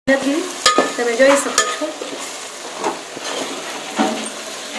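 Steel spoon stirring sliced vegetables in an aluminium pot, clicking and scraping against the pot, with the vegetables sizzling as they fry.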